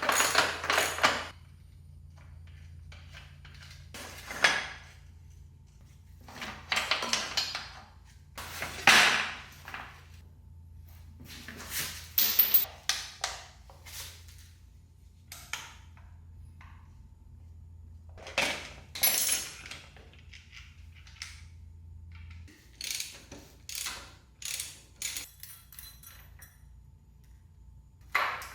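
Hand tools and metal parts knocking, clanking and scraping now and then, with quiet gaps in between, as the worn chain and sprockets come off a motorcycle. A faint low hum runs underneath and stops about three-quarters of the way through.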